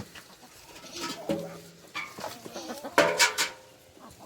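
Laying hens clucking in a coop, a run of short pitched calls, with one louder call about three seconds in.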